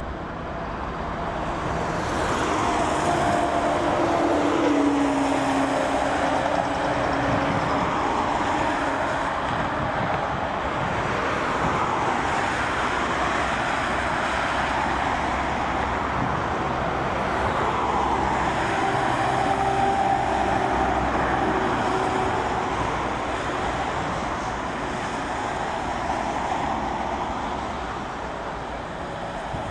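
Airbus A330-223's twin jet engines at takeoff power: a loud, steady jet roar that builds over the first two seconds, with engine tones dropping in pitch a few seconds in.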